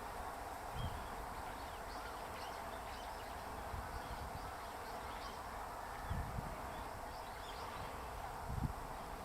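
Short, faint, high bird chirps scattered over a steady hiss-like outdoor drone, with a few low thumps about six and eight and a half seconds in.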